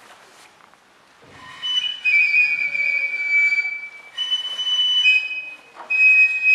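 Japanese bamboo transverse flute (shinobue) playing long, high held notes in a slow opening phrase, starting about a second and a half in. The longest note sinks slightly in pitch, and the pitch steps between notes.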